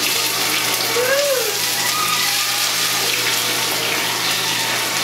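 Kitchen tap running steadily into the sink, a continuous rushing hiss that starts suddenly at the beginning.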